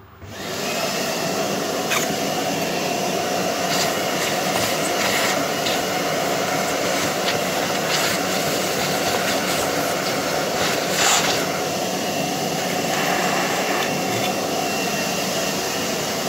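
Vacuum cleaner switched on about half a second in, then running steadily as its nozzle sucks up aluminium chips from a freshly machined plate. Sharp clicks come now and then as chips are drawn into the nozzle.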